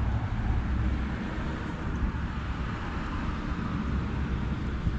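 Steady outdoor background rumble and hiss, heaviest in the low end, with no distinct event standing out.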